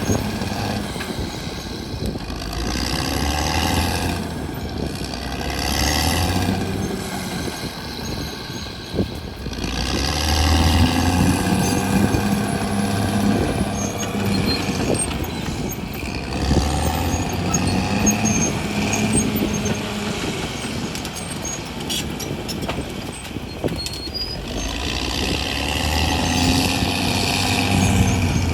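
CAT D6R XL bulldozer's diesel engine working, its pitch and loudness rising and falling every few seconds as it takes load and eases off, with occasional clanks.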